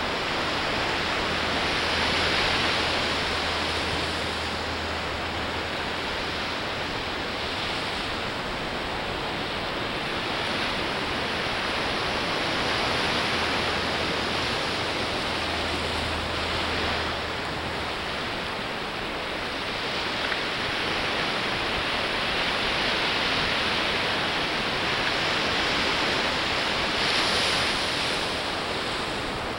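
Ocean surf breaking on a sandy beach: a steady wash of waves that swells and falls every few seconds as each wave breaks and runs up the sand.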